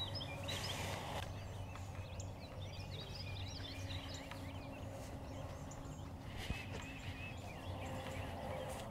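Wild birds chirping and singing in a faint early-morning dawn chorus, many short rising and falling notes overlapping.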